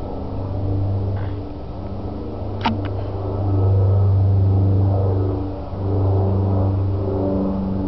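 Young kittens purring close to the microphone: a low, continuous purr that swells and dips with each breath, with a single short click about two and a half seconds in.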